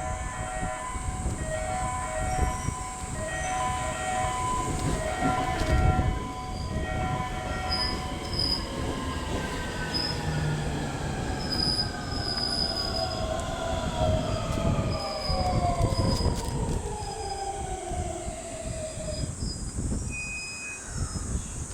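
521 series electric train arriving and braking to a stop: its inverter-driven traction motors whine in several tones that fall steadily in pitch as it slows, over the rumble of wheels on rail, with short high squeals from the wheels and brakes. A repeating electronic chime plays in the first several seconds.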